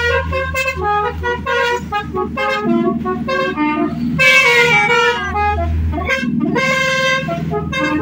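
Indonesian "telolet" multi-tone bus horn playing a quick run of short melodic notes, a few sliding downward about halfway through, over the steady low drone of the bus engine.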